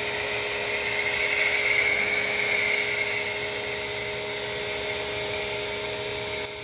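Ryobi 1600 electric pressure washer running steadily, its motor and pump giving a steady whine over the hiss of spraying foam through a foam cannon.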